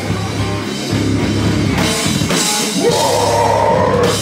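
Live rock band playing loud: electric guitars, bass and a drum kit with repeated cymbal crashes. About three seconds in, a note slides up and is held.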